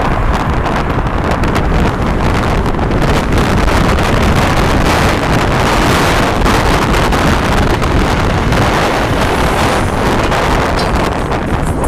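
Loud wind buffeting the microphone, a continuous rumbling rush.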